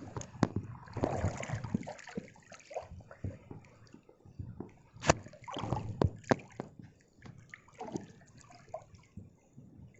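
Seawater splashing and sloshing in irregular surges around a wading angler in rough surf, with sharp knocks, the loudest about five seconds in; it dies down over the last few seconds.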